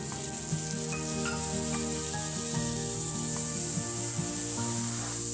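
Chopped tomato and vegetables frying in hot oil in a pan, a steady sizzle, with background music playing.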